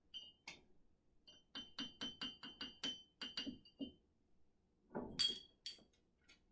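A spoon clinking against a glass mason jar: a run of about ten quick, ringing taps at roughly four a second, then a few louder clinks and knocks near the end.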